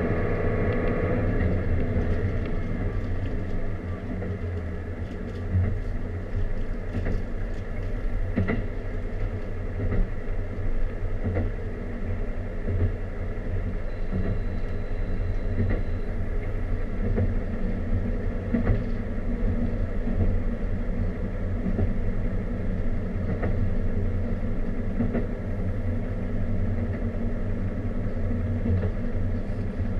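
Running noise inside a diesel railcar under way: a steady rumble and engine drone, with scattered knocks from the wheels on the track. A higher engine tone dies away about a second in.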